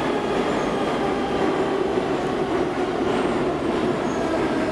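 Steady running hum of a Moscow Metro 'Yauza' subway car standing at a station, with a few held tones in the hum.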